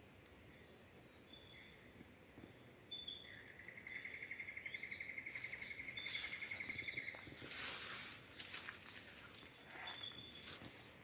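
Quiet rainforest ambience: birds giving short whistled notes, and a fast pulsing trill that runs for about four seconds from about three seconds in. Past the middle comes a brief rustle followed by a few light crackles.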